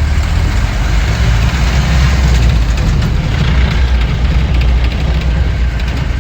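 Safari vehicle's engine running with a steady low rumble, mixed with road and wind noise.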